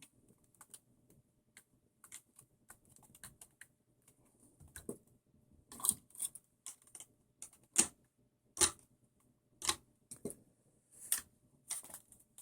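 Irregular small clicks and taps of hands working plastic and metal parts on an RC buggy's motor and gear mount while the pinion-to-spur gear mesh is being set. They are sparse at first and louder and more frequent from about halfway through.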